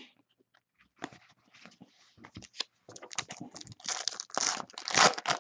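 Trading cards shuffled in the hand, then a foil trading-card pack torn open and crinkled, a run of crackles and rips that grows louder about three and a half seconds in.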